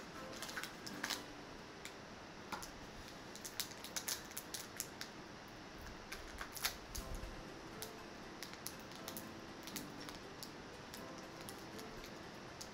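Faint, scattered clicks and rustles of a blind-box pin package being opened by hand.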